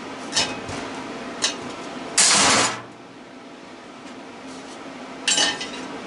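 Metal knocks and clanks from taking apart a scrap electric motor, with an old screwdriver being driven as a punch to knock a part out. A few sharp clicks, then a loud harsh metallic clatter about two seconds in lasting about half a second, and another clatter near the end.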